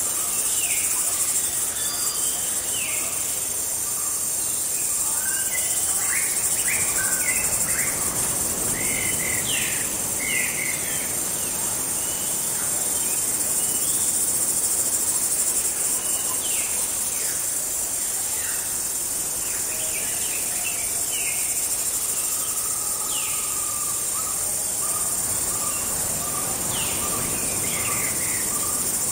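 Insect chorus (crickets) making a steady high-pitched drone, with many short bird chirps and whistled calls scattered over it.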